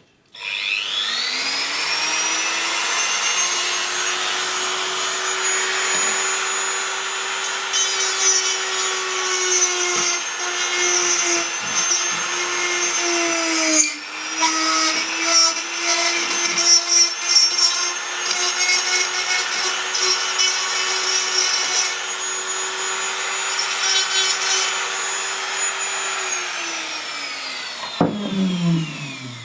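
Dremel rotary tool cutting a hole in the plastic housing of a small garage door remote. The tool spins up right at the start to a steady high whine, with grinding and scraping through the middle as it cuts. Its pitch sags briefly under load about halfway, and it winds down with a falling pitch near the end.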